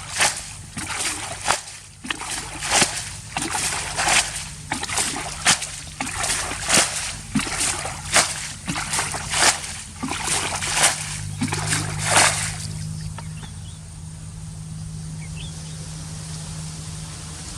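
Water splashing in a steady rhythm, about one and a half splashes a second, that stops about twelve seconds in; after that a steady low hum carries on.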